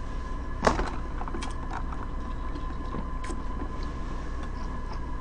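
Chewing with a full mouth: a few short wet clicks and smacks, the sharpest just under a second in, over a steady electrical hum with a thin whine.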